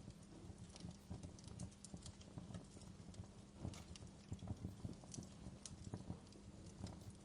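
Wood fire in a fireplace crackling: irregular small pops and snaps over a steady low rumble.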